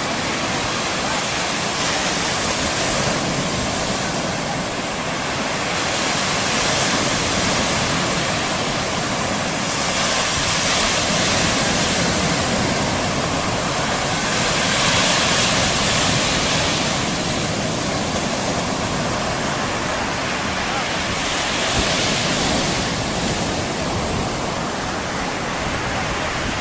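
Small Mediterranean waves breaking and washing up a sandy beach, a steady rushing that swells and eases every few seconds as each wave comes in.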